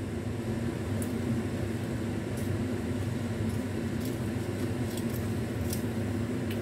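Steady low mechanical hum, like a fan or appliance running in a small room, with a few faint crisp clicks as bread is chewed and pulled apart.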